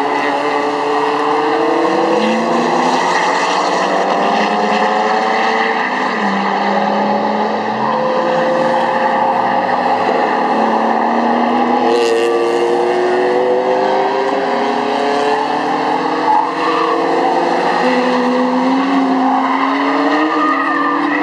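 Sports car engine running hard on track, its pitch climbing steadily through each gear and dropping back at the shifts. About seven seconds in, the pitch falls and rises again quickly, as when the car brakes and downshifts for a corner.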